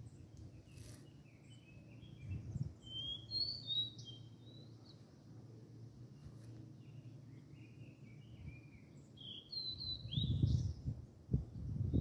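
Songbirds singing in two spells of quick chirping phrases, a few seconds in and again near the end, over a steady low rumble that swells louder near the end.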